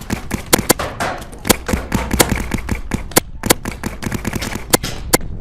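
Paintball markers firing a rapid, irregular string of shots, some close and loud, others fainter, with wind rumbling on the microphone underneath.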